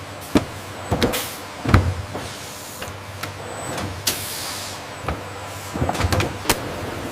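Production-line machinery running with a steady hum, irregular sharp clacks and knocks, and a short hiss about four seconds in.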